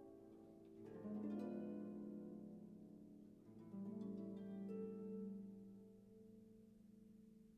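Soft background music of plucked, harp-like notes ringing out in slow chords, with new chords struck about one second and three and a half seconds in.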